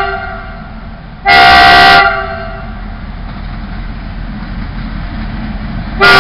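EMD J26CW diesel locomotive sounding its horn, a very loud chord of several tones: one blast of under a second about a second and a half in, and another starting at the very end. Between the blasts the train's low rumble grows louder as it approaches.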